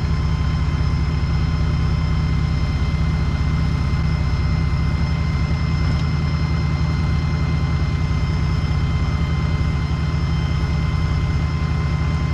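Mini excavator's diesel engine running steadily, a constant low rumble with a steady high whine over it, while the machine is worked to push itself out of swamp mud.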